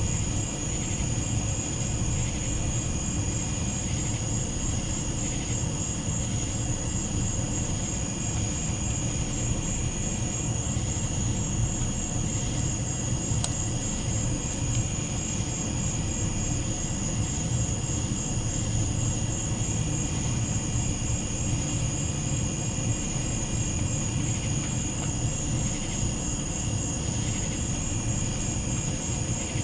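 Night insect chorus, crickets and katydids trilling continuously in several high pitches, over a steady low rumble.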